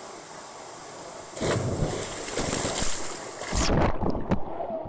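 Steady rush of waterfall water, then from about a second and a half in, irregular gusts of wind buffeting the microphone with a low rumble, heaviest near the end.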